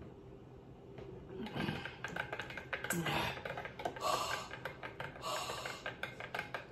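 A woman drinking a frozen fruit smoothie through a straw, then, about a second and a half in, pulling off to gasp and pant in sharp, hissing breaths with a couple of short groans, amid light clicks. The cold of the frozen drink is what she is reacting to.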